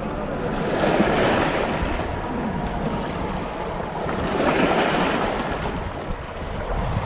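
Small waves washing against shoreline rocks, swelling twice, with wind noise on the microphone.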